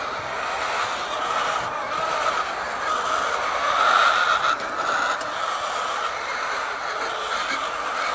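A large flock of laying hens in a poultry house, clucking and chattering together in a steady din that swells a little about four seconds in.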